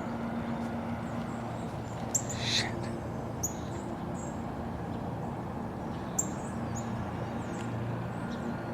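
Small birds giving short, high chirps several times over a steady low hum, with one brief breathy hiss about two seconds in.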